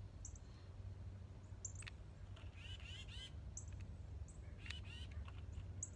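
Birds calling: short high chirps every second or two, with a couple of longer, lower calls, over a steady low rumble.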